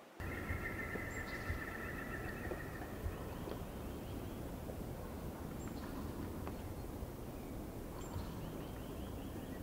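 Steady outdoor background hiss with a bird calling: a wavering call of about two seconds at the start, then a few brief faint chirps.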